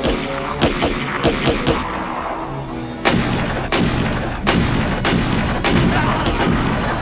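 Movie gunfight: several single gunshots in the first two seconds, then from about three seconds in heavier, denser gunfire with loud booms, over a dramatic music score.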